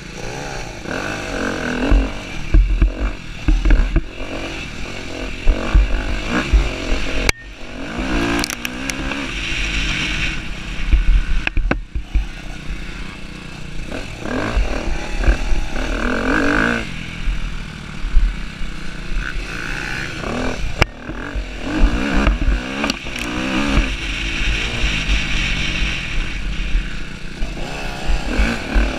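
Husqvarna TC250R motocross bike engine heard from on board, revving up and down again and again as it is ridden hard through the corners and straights of a dirt track. Heavy wind rumble buffets the microphone throughout.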